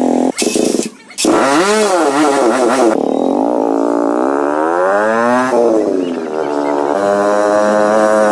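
Restored motorcycle's engine running and revving: a few quick revs up and down, then a long rise in pitch as it accelerates, and a steadier run near the end. The sound breaks off abruptly a couple of times near the start.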